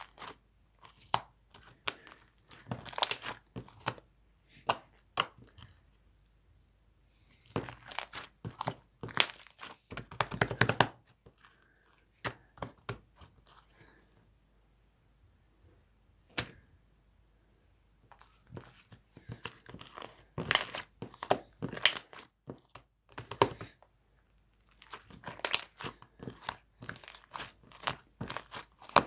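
Hands playing with a Melona slime, stretching and pressing it so it gives bursts of sticky crackling, tearing and popping clicks, with short pauses between handfuls.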